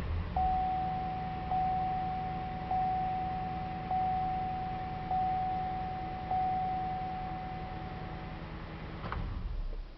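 Car's dashboard warning chime dinging at an even pace, about once every 1.2 seconds, six times, over a steady low hum. Near the end a click comes and the hum stops, as the key is turned back.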